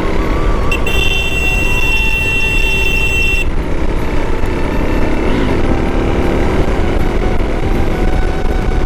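Motorcycle riding in traffic: the low rumble of engine and wind runs throughout. About a second in, a vehicle horn blasts once, held for about two and a half seconds before cutting off.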